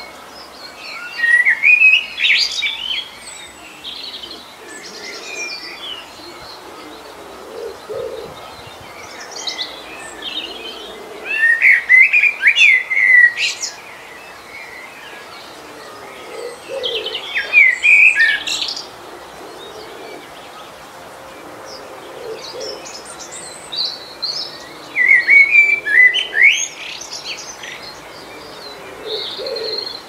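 A songbird sings four loud phrases of rapid chirping notes, several seconds apart. A softer, lower call repeats between the phrases, over the steady hiss of flowing stream water.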